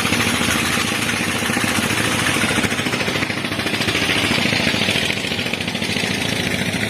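Motorcycle engine running steadily, with a fast, even pulsing.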